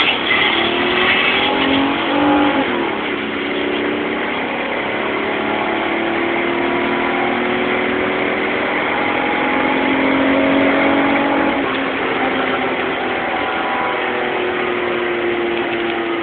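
Chevy Malibu engine under full-throttle acceleration on a quarter-mile drag run, heard from inside the cabin. The engine note climbs steadily, falls sharply at an upshift about three seconds in and again near twelve seconds, then climbs again.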